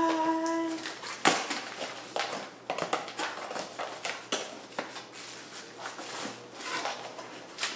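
Cardboard appliance box being opened by hand: flaps pulled open and packing rustled, with irregular clicks and scrapes and one sharp crack about a second in.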